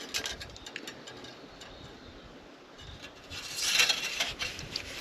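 Hands working in a tractor's engine bay during a fluid check: a few light clicks, then a short rough scraping, rubbing noise about three and a half seconds in.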